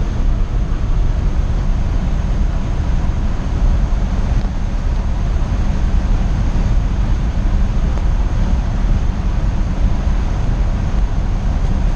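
Steady road and wind noise inside the cab of a moving pickup truck: a low, even rumble of engine and tyres with wind hiss over it, unchanging throughout.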